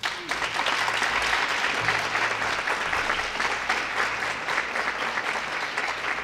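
Audience applauding: a dense, steady round of many hands clapping that breaks out all at once.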